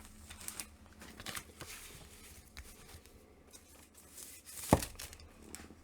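Comic books being handled and put away: soft rustling and light taps, with one firmer knock about three-quarters of the way through.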